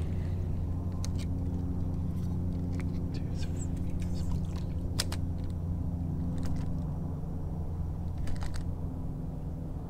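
Electric trolling motor running with a steady low hum, and a few sharp clicks and taps from handling the rod and reel.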